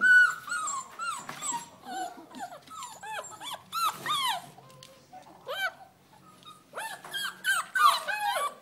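Several six-week-old puppies yipping and whining in short, high, rising-and-falling calls that often overlap. The calls thin out about five seconds in and pick up again near the end.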